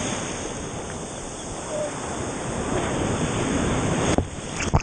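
Ocean surf washing and breaking in the shallows, picked up by a camera held at water level, with wind on the microphone. A little after four seconds in the sound changes abruptly, with a few sharp, loud sloshes as water hits the camera.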